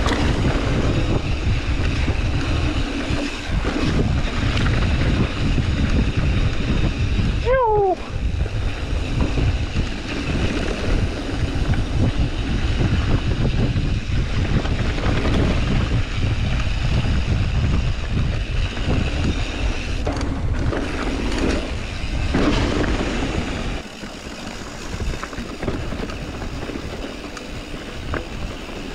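Wind buffeting an action camera's microphone as a mountain bike rides fast down a dirt trail, with a steady low rumble from the ride. A brief squeal that bends in pitch comes a little under eight seconds in, and the noise eases somewhat near the end.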